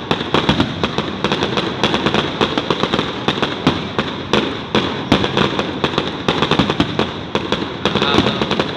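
Fireworks going off in a dense, unbroken barrage: many sharp bangs and crackles a second, overlapping each other.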